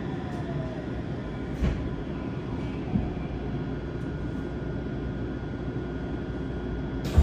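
Inside a Yokohama Blue Line 3000S subway car with a Mitsubishi IGBT-VVVF inverter, running slowly into a station and stopping: a steady low rumble with a faint falling inverter whine near the start. Two short knocks come about a second and a half apart.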